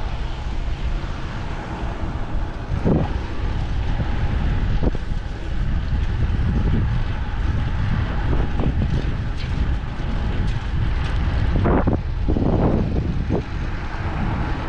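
Wind buffeting the microphone while riding a fixed-gear bicycle: a steady low rumble with a few sharp knocks and rattles now and then.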